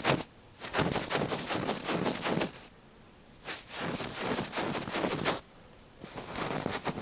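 Cat's claws scratching and raking in rapid raspy bouts of about two seconds each, three times with short pauses between.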